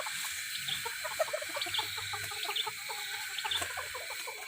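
A flock of young bantam chickens clucking, with many short calls overlapping and a few thin high chirps among them.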